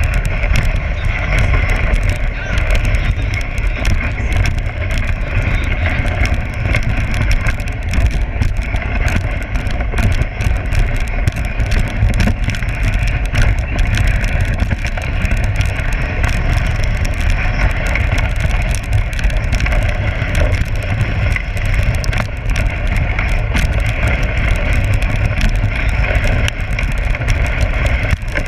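Dog sled running fast over a packed snow trail: a steady, loud rumble and hiss from the runners on the snow.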